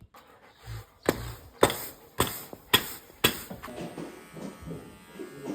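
A run of five sharp knocks, evenly spaced about half a second apart, followed near the end by a faint steady hum.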